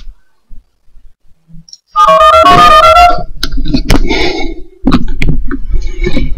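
A quick run of telephone touch-tone (DTMF) dialing tones about two seconds in, each a two-note beep stepping rapidly from digit to digit. Then come clicks and crackling line noise as the call goes through.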